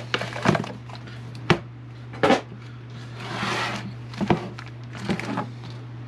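Cardboard retail box for a wet palette being opened and unpacked by hand, its contents slid out and set down on a cutting mat: about five sharp taps and knocks, with a longer scraping slide near the middle. A steady low hum runs under it.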